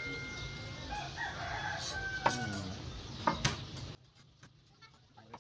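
A rooster crowing in the background, while stainless steel dish rack parts clink and tap as they are handled. The ringing of an earlier metal clang fades out at the start, and the sound cuts off abruptly about four seconds in.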